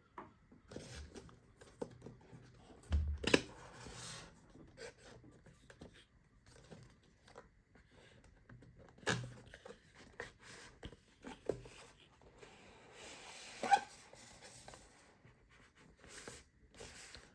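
Strong sealing tape being peeled and torn from a small cardboard box, with irregular rustles, scrapes and knocks of the packaging being handled; louder tearing bursts come about three seconds in and again near the end.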